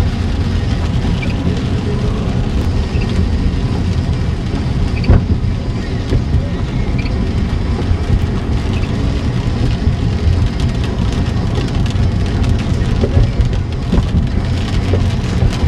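Steady road noise inside a moving car, its tyres on wet pavement, with rain on the body and windshield. A brief thump about five seconds in.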